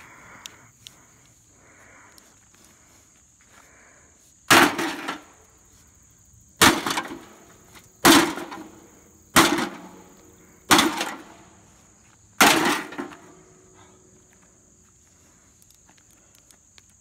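A sledgehammer strikes the sheet-metal body of an old charcoal grill six times, one to two seconds apart, starting about four and a half seconds in. Each blow is a loud clang that rings briefly.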